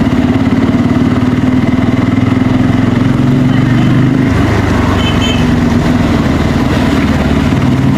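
Bajaj Pulsar N250's single-cylinder engine running through its stock exhaust at a steady note, the low end shifting slightly about four seconds in.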